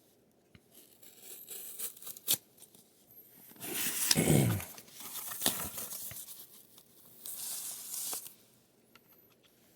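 Packaging being torn open and crinkled by hand as a returned PSA grading shipment is unboxed: irregular tearing and rustling with a few sharp clicks, loudest about four seconds in.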